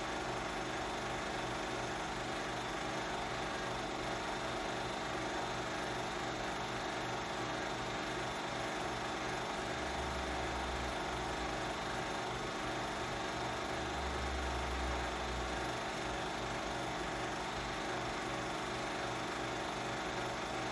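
Film projector running: a steady mechanical whir with a fast, regular flutter and two brief low rumbles near the middle.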